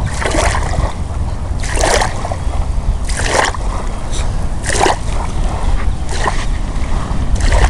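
Shallow shoreline water splashing in short bursts about every second and a half, over a steady low rumble.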